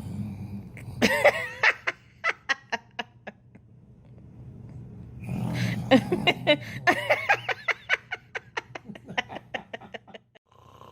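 A man snoring, each snore followed by a baby's giggling laugh in a string of quick high-pitched bursts. It happens twice, the second laugh longer and trailing off near the end.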